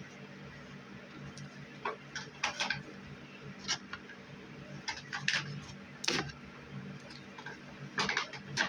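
Objects being handled: scattered clicks, taps and short rustles at an uneven pace over a steady low hum, with a sharper knock about six seconds in and a few more near the end.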